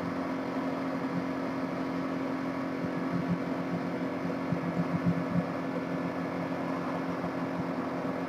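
Steady room hum and hiss, like a fan or appliance running, with a few faint soft taps and rubs of a ruler and pencil on paper a few seconds in.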